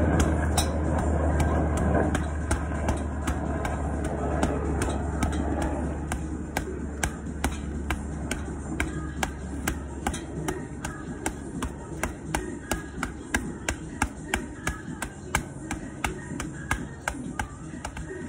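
Boxing gloves striking a hanging heavy bag in quick punch combinations, about two to three thuds a second. A low vehicle rumble fades out over the first several seconds.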